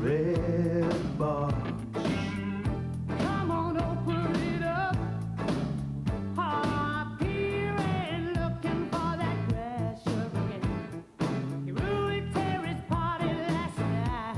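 A pop-soul song playing: a lead vocal over a bass line and a steady drum beat.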